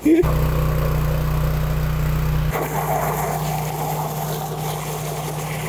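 Pump running steadily while water and Orbeez gush out of the big discharge hose into the dump truck bed. A low machine hum is loudest at first; about two and a half seconds in it drops back and the rush of water comes forward.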